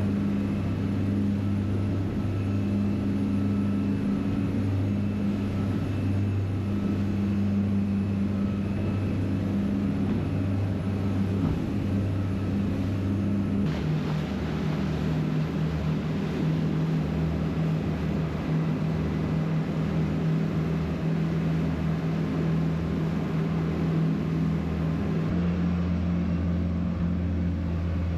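Motorboat's outboard engine running hard at speed with a steady drone, over wind and water noise. The engine note steps down a little about halfway through.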